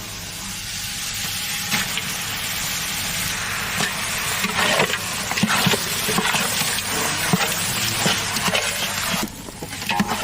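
Raw mutton pieces sizzling as they fry in hot oil and masala in a cooking pot, with a ladle knocking and scraping as they are stirred. The sizzle cuts off shortly before the end.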